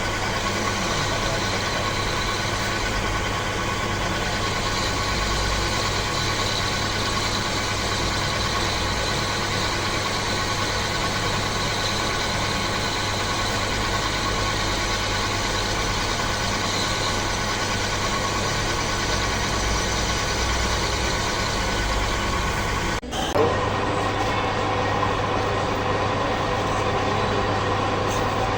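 Metal lathe running steadily, turning a two-stroke motorcycle cylinder head, with a constant machine hum. Near the end the sound breaks off for an instant and comes back with a rising whine as the spindle picks up speed again.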